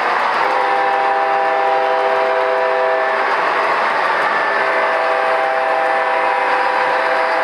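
MTH model coal train rolling along its track with a steady running noise of wheels, while the diesel locomotive's sound system blows its horn: one long blast of about three seconds, then a second long blast starting about halfway through.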